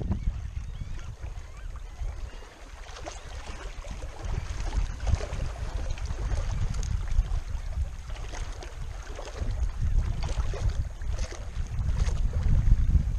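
Wind buffeting the camera's microphone, a low rumble that rises and falls in gusts.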